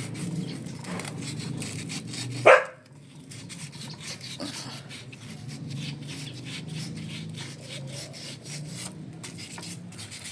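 Fine sandpaper rubbed back and forth by hand on the metal of an air conditioner's electronic expansion valve, scratching off light rust, over a steady low hum. About two and a half seconds in, a dog barks once, loudly, in a short rising yelp.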